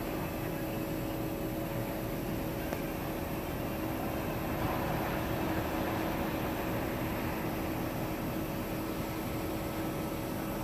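Steady background noise with a constant low mechanical hum, swelling slightly about five seconds in.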